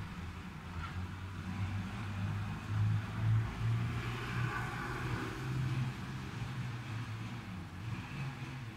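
A steady low motor hum, like a vehicle engine running, a little louder about three seconds in.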